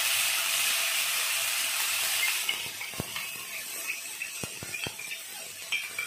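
Ground onion and garlic masala paste sizzling in hot oil in a metal kadai, the loud hiss dying down after about two seconds. Then a metal spoon and spatula clink and scrape against the pan and bowl a handful of times.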